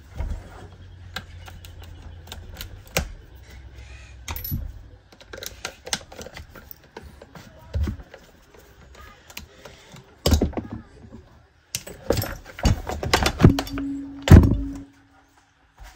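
Small metallic clicks and clatter of a nut driver and loose parts working on a partly dismantled chainsaw, then several louder knocks from about ten seconds in as the saw body is lifted, turned and set down on the bench.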